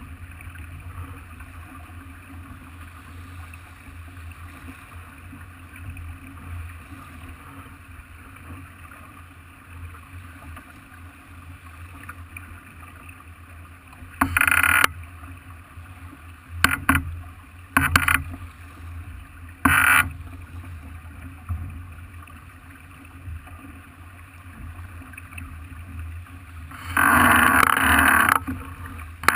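Farr 40 racing yacht moving through the water under sail: a steady low rumble of water and wind along the hull, broken by short loud splashes of water four times in the second half and a longer rush of spray near the end.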